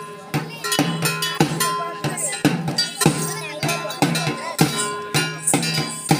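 Barrel drums and clanging metal percussion beat a fast, steady folk-dance rhythm of about three strokes a second, each drum hit with a ringing metallic clang over it.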